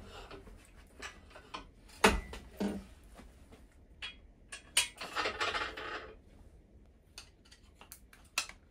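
Metal clunks and clinks from a Mazda 13B rotary engine being worked on an engine stand: a heavy clunk about two seconds in, a sharp click and a short scraping rustle around the middle, then a quick run of light taps near the end from a soft-face mallet on the aluminium front housing.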